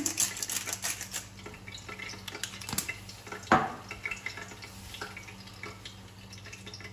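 Pepper grinder being twisted over a frying pan of vegetables, a fine rapid crackle in the first second. Then faint sizzling and dripping sounds from the pan, with a couple of sharp knocks, the loudest about three and a half seconds in, over a steady low hum.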